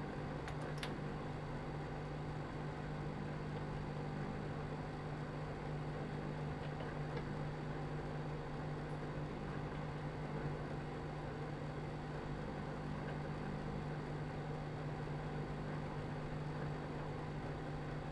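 Microwave oven running its heating cycle: a steady hum with a strong low tone, and a couple of faint ticks near the start.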